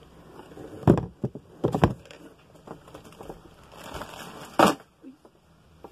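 Plastic cosmetics bottles and packaging being handled in a cardboard box. There are a few sharp knocks about one and two seconds in, then a stretch of rustling that ends in a sharp click near the end.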